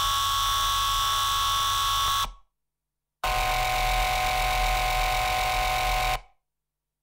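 Sustained electronic drone of several steady held tones over a low hum. It drops to dead silence about two and a half seconds in, comes back a second later for about three seconds, and drops out again near the end.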